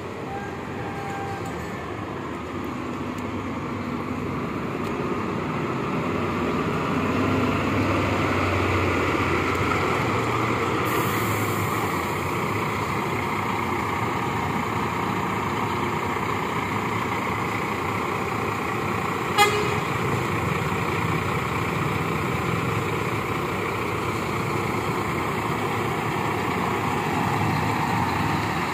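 A double-decker coach's engine running as it pulls in and moves slowly past, growing louder over the first several seconds and then holding steady. About two-thirds of the way through comes a very short horn toot.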